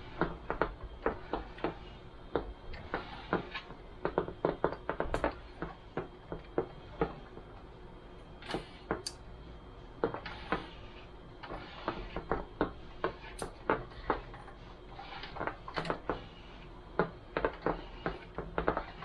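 Upright garment steamer working on a cotton baby onesie: a steady low hiss with many irregular clicks and taps, several a second.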